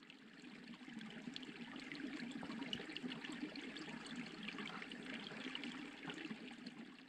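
Shallow creek trickling over stones, fading in over the first couple of seconds and fading down near the end.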